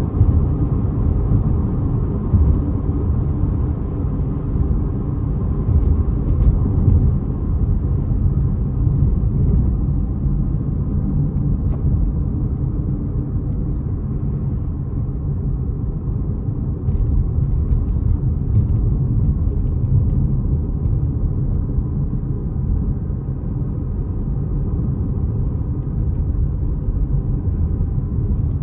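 A car driving: the steady rumble of engine and road noise, with no breaks.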